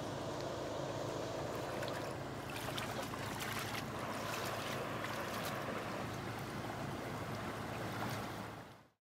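Jet boat engine running steadily on the river, with water and wind noise and some crackling over it, fading out near the end.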